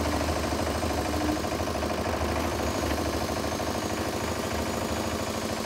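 Small diesel engine of a cement mixer running steadily at a constant speed, driving the turning mixing drum.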